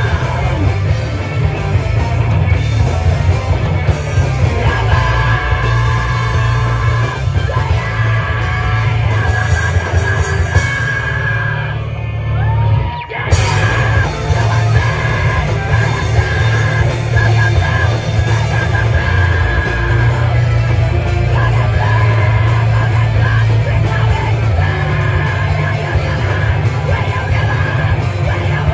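Live heavy rock band playing loud, with drums, guitars and yelled vocals. About twelve seconds in, the band thins out for a moment and a single sliding guitar tone is left, then the full band crashes back in.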